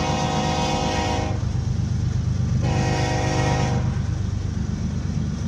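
BNSF diesel locomotive's multi-chime air horn sounding two blasts: one running into the first second and stopping, then a shorter blast around the middle. It is heard from inside a car pacing the train, over a steady low rumble of road and engine noise.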